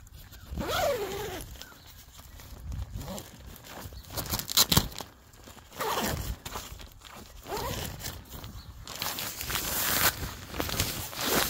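Zipper on the door of a one-person backpacking tent being pulled open in several separate strokes, with the tent fabric rustling as it is handled.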